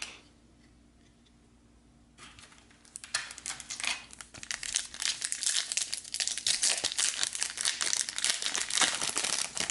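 A foil trading-card pack wrapper (Garbage Pail Kids Chrome Series 4) being crinkled and torn open by hand. Dense crackling starts about two seconds in and stays loud to the end.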